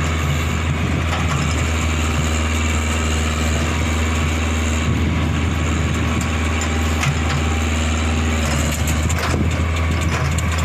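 Komatsu PC40 mini excavator's diesel engine running steadily at a constant pitch while the machine works its boom and bucket, with a few short knocks in the middle and near the end.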